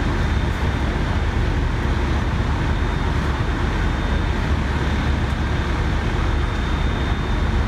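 Steady low rumble of fire trucks' diesel engines running at the scene, with a faint steady high tone.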